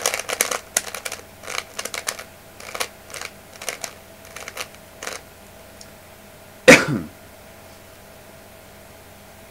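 Plastic layers of a 3x3 Rubik's cube clacking as they are turned in quick flurries, stopping about five seconds in. A short, loud vocal sound falling in pitch follows a couple of seconds later.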